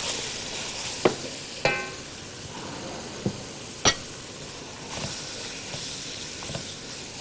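Flour sizzling steadily as it is lightly toasted in a hot pan and stirred, the first stage of a béchamel. Several sharp knocks of a utensil against the pan break in, and one of them rings briefly.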